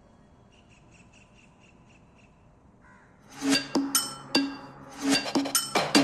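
Relaxation music: a quiet stretch with a faint, fast fluttering trill, then from about three seconds in a run of bright, ringing struck notes from pitched percussion, about two to three a second.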